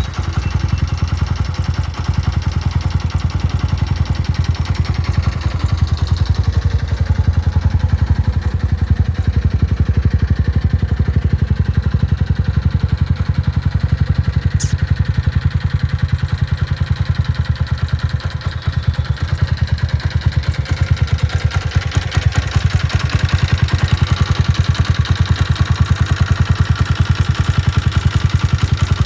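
Jawa 42 FJ motorcycle's single-cylinder engine running steadily at idle, carrying the abnormal mechanical noise that the title calls a serious noise problem.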